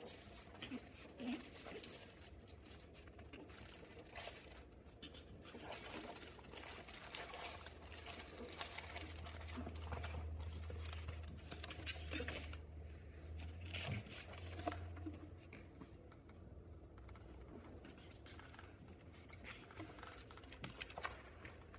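Faint rustling and scuffling of pug puppies moving about on a blanket, with many small scattered patters and clicks, and a low hum through the middle.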